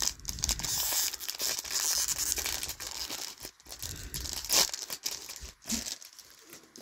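Foil wrapper of a Topps Chrome MetaZoo trading-card pack being torn open and crinkled by hand: a dense crackling rustle that breaks into a few separate crinkles and thins out after about five seconds.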